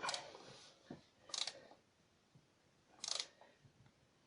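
Screwdriver snugging a screw down into a wooden floorboard and the joist below it in three short bursts, to stop the board creaking.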